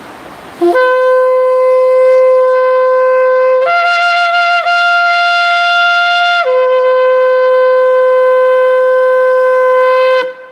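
A 103-centimetre jumbo shofar with a small mouthpiece blown in one long blast: it holds a low note, jumps up to a higher note for about three seconds in the middle, then drops back to the low note and stops near the end.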